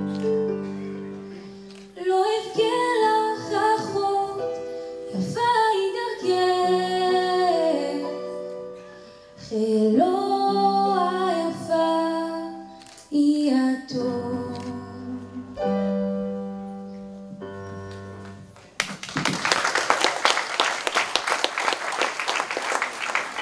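A young woman sings the last lines of a slow Hebrew song into a microphone over an accompaniment of long held notes. The song ends about 19 s in, and the audience breaks into applause.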